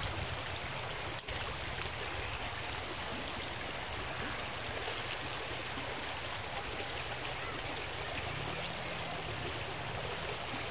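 Shallow mountain river running steadily over a stony bed, with a brief sharp click about a second in.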